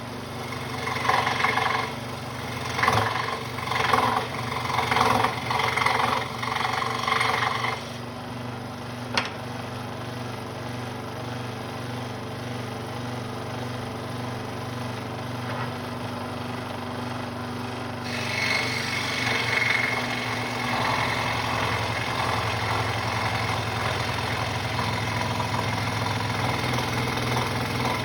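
Central Machinery scroll saw running with a steady hum, its blade cutting wood in uneven surges for about the first eight seconds. It then runs more evenly and grows louder again about eighteen seconds in.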